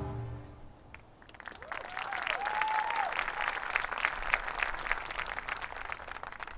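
Stadium audience applauding and cheering, building from about a second in, with a few rising-and-falling whoops around two to three seconds. The low ringing of a marching band's final loud chord dies away in the first second.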